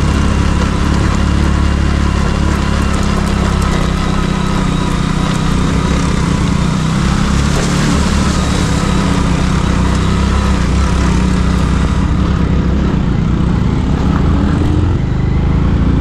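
Motorcycle engine running steadily while the bike is ridden along a rough road.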